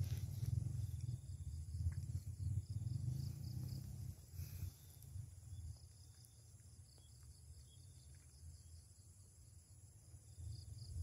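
Low wind rumble on the microphone, strong for about the first four seconds and then easing, over steady, evenly repeating insect chirping.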